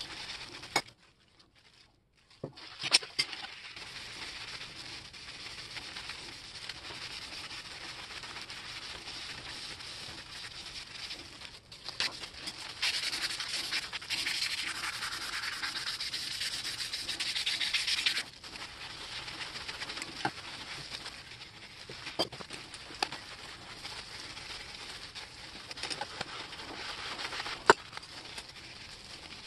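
Steady scratchy rubbing of an abrasive pad scrubbed by hand over the steel blades of vintage grass shears. It stops briefly near the start, runs louder and harsher for several seconds around the middle, and is broken by a few sharp clicks of metal parts knocking.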